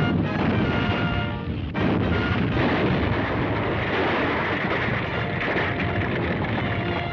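Orchestral cartoon score with held brass notes, broken off about two seconds in by a loud, continuous rumbling crash sound effect of the electric earthquake.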